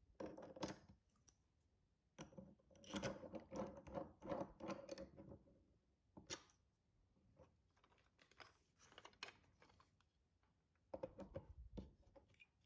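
3D-printed plastic kit parts handled and fitted together by hand: clicks, clatter and plastic-on-plastic scraping in irregular bursts, with a sharp click about six seconds in. A large printed plastic screw is turned into a wheel hub with a plastic screwdriver, its threads scraping softly.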